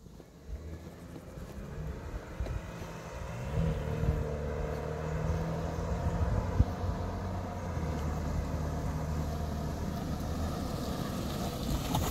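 A motor vehicle's engine running, growing louder over the first few seconds as it comes near, then holding at a steady low hum.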